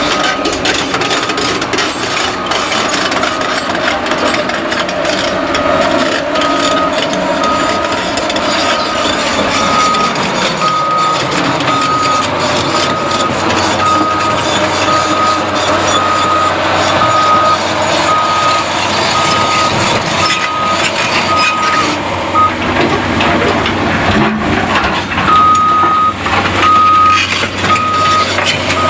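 Backup alarm on heavy machinery beeping steadily, about one and a half beeps a second, pausing for a few seconds near the end, over diesel machinery running and scattered knocks and clatter of demolition.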